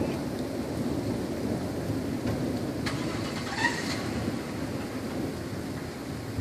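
A car engine being cranked and struggling to start, heard as a steady low rumble with a short click about three seconds in; the car has slight starting problems.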